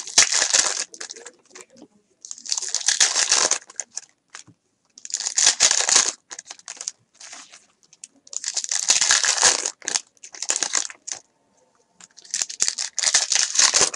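Foil trading-card pack wrappers crinkling and tearing as they are ripped open by hand and the cards slid out, in about five spells of a second or so with small clicks of cards between.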